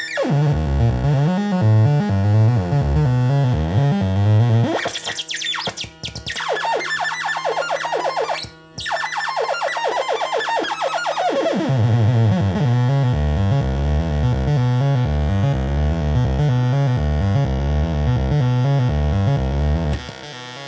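ARP Avatar analog synthesizer playing a repeating sequenced pattern of low notes, apparently without its first oscillator working. About five seconds in, the notes give way to fast sweeping glides up high over a steady hum. The pattern returns after that and stops abruptly near the end.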